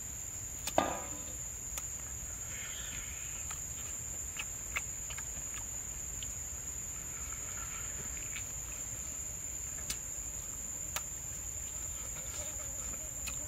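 Insects droning steadily at a high pitch, with scattered mouth clicks and smacks as cooked snake meat is bitten and chewed; the loudest smack comes about a second in.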